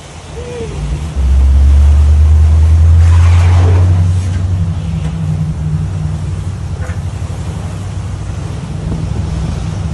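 Pilot boat's diesel engine running under load alongside a ship, a heavy low rumble from about a second in until about four seconds, then a steadier, lower hum. Water rushing along the hulls and wind on the microphone underneath.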